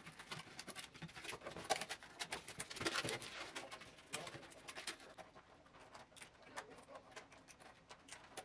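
Rustling and clicking of a 3D stadium puzzle's pieces and cardboard packaging being handled close by, busy for the first few seconds and then thinning to scattered soft clicks.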